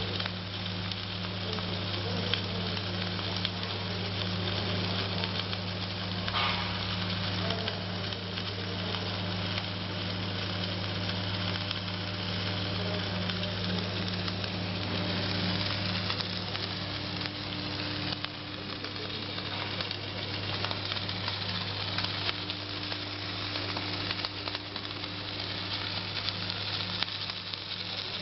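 Welding arc from a Tauro beam-welding gantry, crackling and sizzling continuously over a steady low electrical hum from the welding equipment.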